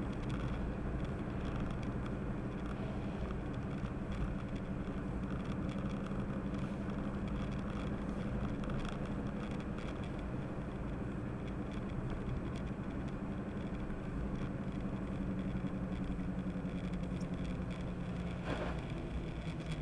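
Car engine and tyre noise heard from inside the cabin while driving on a wet road: a steady low drone with an even engine hum, and a short hiss near the end.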